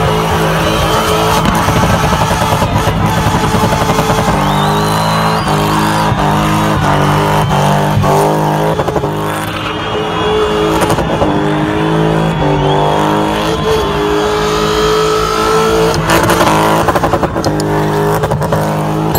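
Spinning car's engine held at high revs, the pitch stepping up and down as the throttle is worked, over the noise of the rear tyres spinning and squealing on the tarmac.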